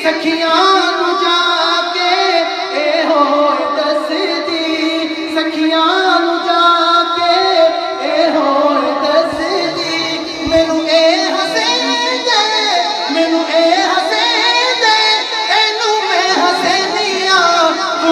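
A solo voice singing a devotional naat, holding long, wavering ornamented notes.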